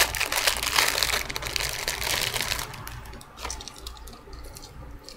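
Clear plastic bag crinkling and crackling as a beaded bracelet is worked out of it, dense for the first two or three seconds, then only a few scattered crackles.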